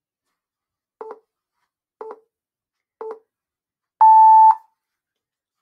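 Countdown timer beeping out its last seconds: three short beeps one second apart, then a longer, louder, higher-pitched beep marking that time is up.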